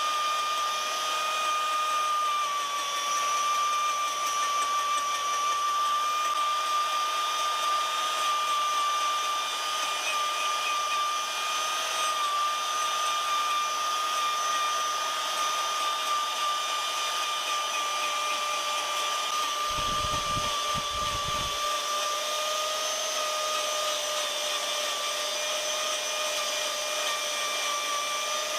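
Electric power carving tool running steadily under light load: a continuous high-pitched motor whine that holds nearly the same pitch throughout. A few low knocks come about twenty seconds in.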